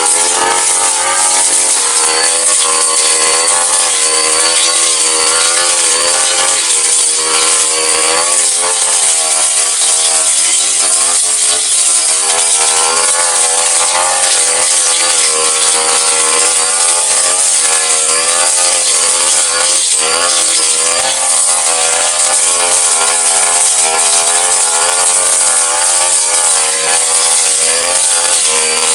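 Brush cutter engine running hard, its pitch rising and falling over and over as the spinning stamvik blade cuts into grass.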